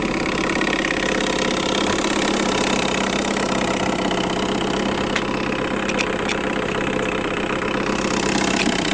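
1974 Johnson 6 hp two-stroke outboard motor running steadily, pushing a small boat along, with no change in pitch or loudness.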